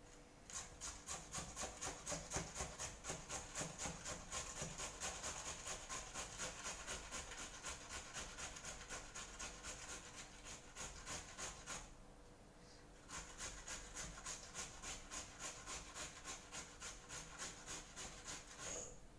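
Potato being grated on a metal box grater into a bowl: quick, even rasping strokes about four a second, breaking off for about a second partway through before starting again.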